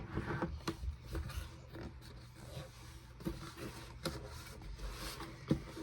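Play-Doh tubs being handled and moved about: scattered light knocks and clicks of plastic and rubbing, over a steady low hum.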